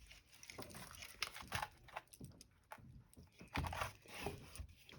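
Product packaging crackling in irregular clicks and rustles as it is handled and opened.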